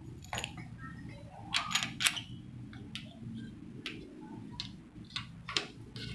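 Irregular small metallic clicks and scrapes of a coaxial cable plug being turned by hand onto the brass connector at the base of a Ringo 27 MHz antenna, the loudest cluster about two seconds in, over a low steady hum.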